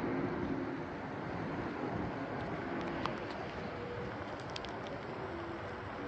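Steady outdoor noise: wind on the microphone with a faint low hum underneath, and a few light ticks partway through.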